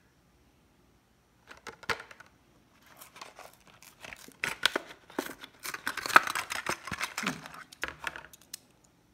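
Hot Wheels blister pack being torn open by hand: the plastic bubble and cardboard backing crackle and rip in an uneven run of tearing and crinkling. It starts about a second and a half in, is loudest past the middle, and stops shortly before the end.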